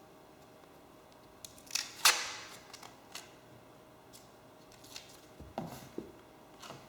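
Adhesive tape pulled off the roll in one short loud rasp about two seconds in, followed by light clicks, taps and a couple of soft knocks as the tape and material are handled.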